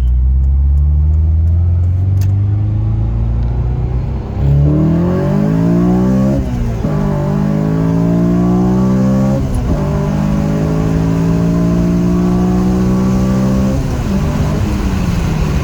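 Honda Civic Si's 2.0-litre i-VTEC four-cylinder breathing through an aftermarket Skunk2 Alpha Mega Power header, accelerating hard under load. The engine note sits low for a few seconds, then climbs steeply. Its pitch drops sharply twice and climbs again each time, then falls away near the end.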